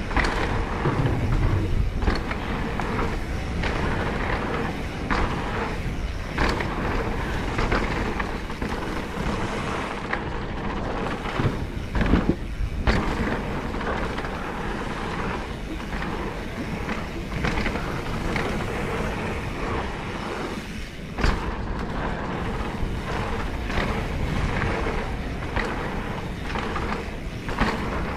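Mountain bike descending a dirt flow trail at speed: steady wind rush over the microphone and tyre noise on packed dirt, broken by frequent rattles and knocks of the bike over bumps, with the hardest jolts about twelve and twenty-one seconds in.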